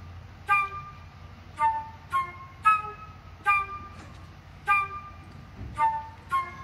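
Background music: a light tune of short, clipped notes at changing pitches, about one to two notes a second.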